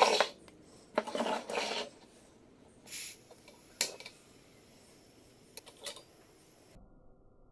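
A portable butane camping stove and a stainless steel jug handled on a wooden table. Scraping and rustling in the first two seconds give way to sharp metal clicks as the gas canister is fitted to the stove and the jug is set on its pot supports.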